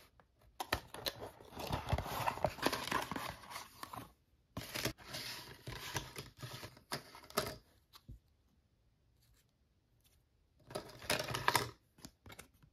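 Cardboard box and the flat card pieces inside it being handled: cardboard and paper rustling and sliding on a table in three stretches with small clicks, the first two about three seconds each and a shorter one near the end.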